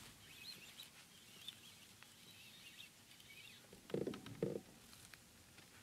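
Faint birds chirping in the background for the first few seconds, then two short low sounds close together about four seconds in.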